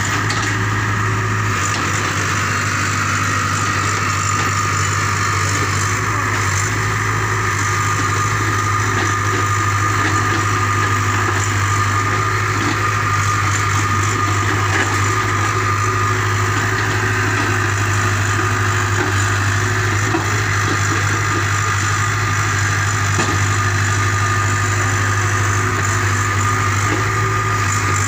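JCB JS81 tracked excavator's diesel engine running steadily as it digs, with a steady high whine over the engine note.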